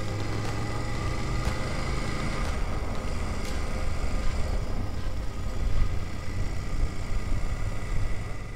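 BMW F 850 GS parallel-twin engine running steadily as the motorcycle rides along a road at about 40 km/h.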